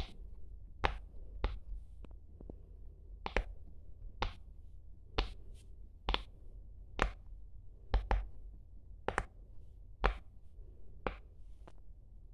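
Round silicone pop-it fidget toy, turned over, its bubbles pressed in one by one by fingers, each giving a short sharp pop, about one a second at an uneven pace.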